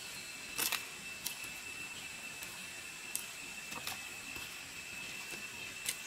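Garden hoe chopping into soil: a few irregular strikes, the loudest a quick double hit about half a second in. A steady high-pitched tone runs underneath.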